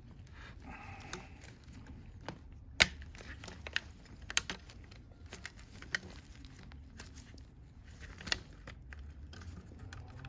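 Hands handling and fitting the plastic parts of a Shark vacuum during reassembly: scattered clicks and knocks over light rustling, with one sharp click about three seconds in.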